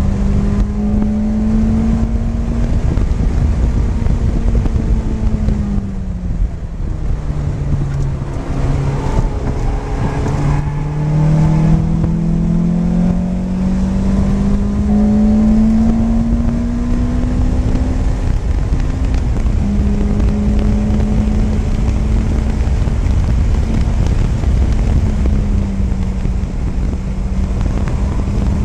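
Lotus Elise's four-cylinder engine under track driving, heard from the cockpit with wind and road noise: the engine note holds steady, falls away about six seconds in as the driver lifts and brakes, then climbs steadily under acceleration before levelling off for the rest of the run.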